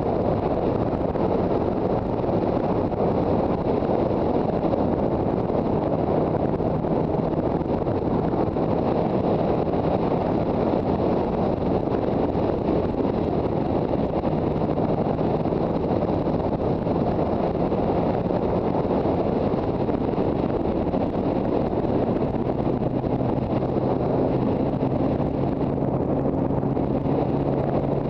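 Motorcycle ridden at road speed, with wind noise rushing over the microphone as the loudest sound. The engine's steady note is faint underneath and settles lower about three-quarters of the way through.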